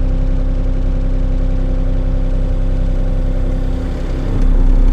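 Excavator engine running steadily at low revs, a constant hum with low rumble. About four seconds in it dips briefly, then gets louder as the hydraulics tilt the bucket back.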